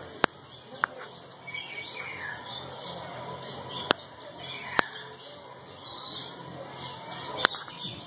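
Many small aviary birds chirping and chattering in quick high calls, with a few sharp clicks.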